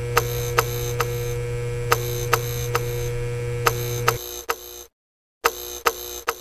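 End-screen sound effects: an electrical hum and buzz with a run of sharp clicks, matching an animated light switch and flickering bulb. The low hum stops about four seconds in; after that the buzzing comes in short stretches broken by two brief silences.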